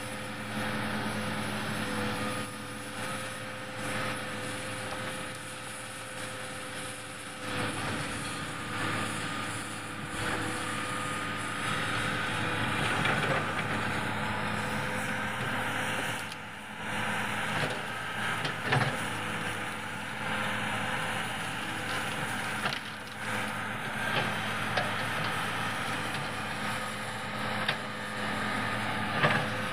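Large Hitachi hydraulic excavator's diesel engine running steadily under working load, with the level swelling as the hydraulics are worked, and a few sharp cracks of wood snapping as trees and branches are broken.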